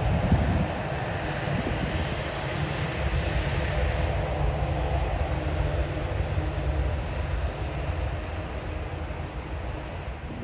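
Jet airliner engine noise: a steady low rumble with a broad hiss above it, easing slightly toward the end.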